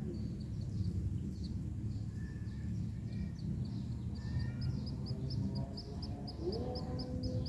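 Munias chirping in a fast, even series of short high notes, about five a second, growing stronger in the second half, with a few other calls over a steady low rumble.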